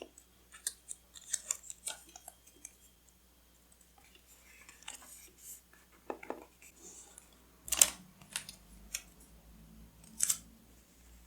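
Scissors snipping and paper being handled, close-miked: a scattered series of crisp snips and clicks, the loudest about two-thirds of the way through and another near the end.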